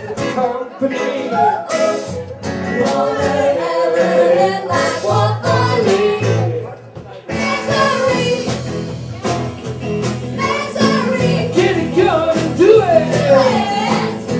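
Live band playing: acoustic guitar, drums and sung vocals, with a brief lull about seven seconds in before the full band comes back.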